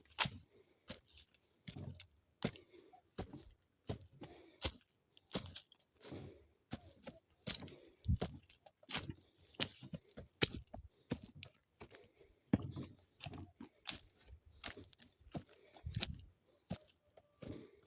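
Irregular sharp clicks and short crunches, several a second.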